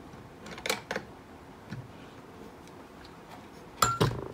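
Screwdriver working a cartridge fuse out of the fuse clips inside a Hioki DT4282 multimeter: a few light clicks, then a sharp metallic click with a brief ring about four seconds in.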